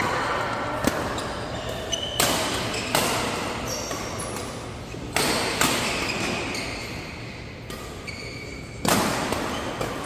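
Badminton rackets striking the shuttlecock in a doubles rally: about six sharp smacks at irregular intervals, each ringing on in a large echoing hall. Short high squeaks from players' shoes on the court mat come between the hits.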